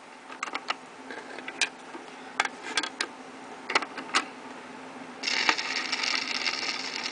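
Record-player handling: scattered sharp clicks and knocks from the tonearm and stylus over a spinning 45 rpm single, over a faint steady hum. About five seconds in the needle is set down in the record's lead-in groove and a steady hiss of surface noise begins.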